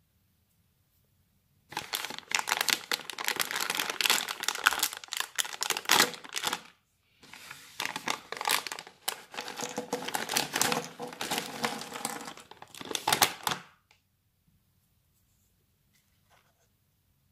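Foil-lined plastic snack bag crinkling as it is handled and torn open, in two stretches of about five and six seconds with a short pause between.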